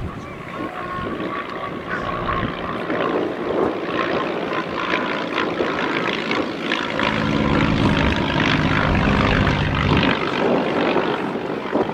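North American Navion's Lycoming O-435 piston engine and propeller droning as the aircraft flies a display pass. The sound grows louder in the second half, where a steady engine note comes through strongly.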